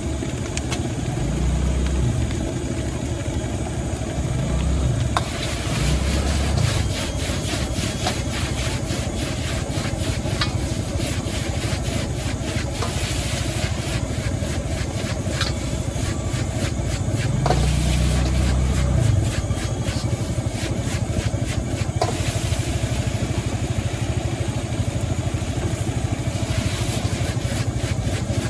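Steady roar of a high-pressure gas wok burner, with a few sharp clicks of a metal spatula against the wok. A low hum swells and fades three times.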